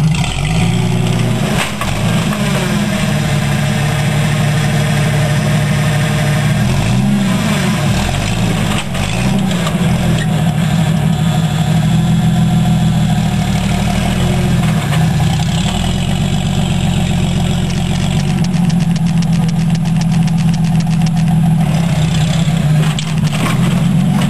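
Jeep engine running at low revs, its pitch rising and falling a few times partway through.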